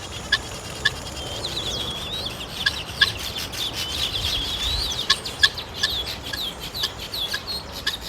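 Birds calling: a string of short, sharp chirps repeated every half second or so, with a high twittering song running between about one and a half and five seconds in.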